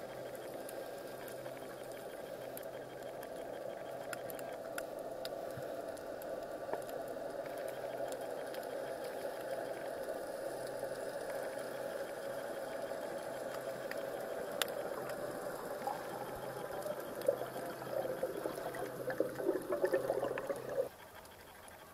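Underwater ambience picked up by a camera under water: a steady muffled water noise with a faint low hum and scattered small clicks, growing louder and crackly in the last few seconds before cutting off abruptly near the end.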